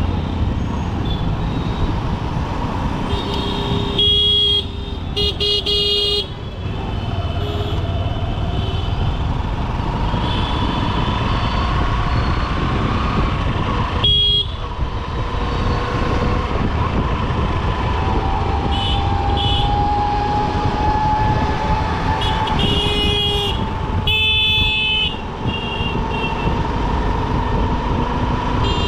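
Honda SP125's single-cylinder engine running under a steady rumble of dense road traffic, with vehicle horns honking repeatedly around it, some as short runs of beeps. A passing engine's pitch glides slowly about two-thirds of the way through.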